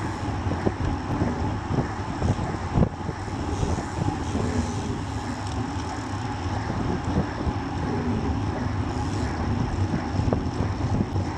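Wind rushing over a bike-mounted camera's microphone while a road bike rides in a pack at about 40 km/h, with steady road and tyre rumble and frequent small knocks from bumps in the road.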